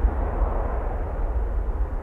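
Air Force One's four turbofan jet engines (a VC-25A Boeing 747) running at high power as the jet rolls along the runway: a loud, steady rush over a deep, uneven rumble, with wind buffeting the microphone.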